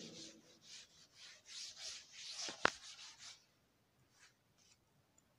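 Felt chalkboard duster rubbing over a blackboard in short back-and-forth strokes, about two a second, erasing chalk, with one sharp tap a little before the three-second mark; the rubbing stops after about three and a half seconds.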